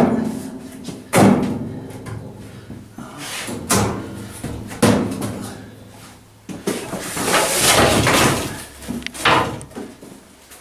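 Wooden table boards being hooked onto the steel brackets of a grill hut's central fire pit: a series of sharp wooden knocks and clunks, a second or more apart, with a longer rubbing noise about two thirds of the way through.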